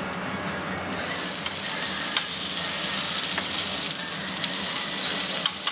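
Chicken cutlets sizzling on a flat-top grill, the sizzle growing brighter and louder about a second in, with a few sharp clicks over it.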